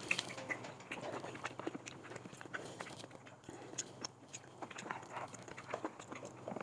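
People eating at a table: chewing, with chopsticks and spoons clicking against small porcelain bowls and the clay pot in irregular light clicks.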